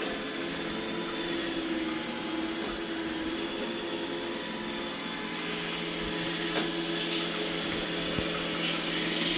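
iRobot Roomba E6 robot vacuum running, a steady motor hum and suction hiss with a few light ticks as it moves across the floor.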